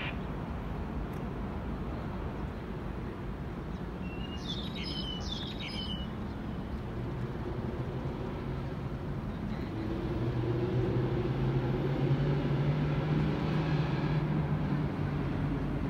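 Steady city traffic noise, with a bird chirping a few quick notes about five seconds in. In the second half a low droning vehicle hum grows louder, then eases off slightly near the end.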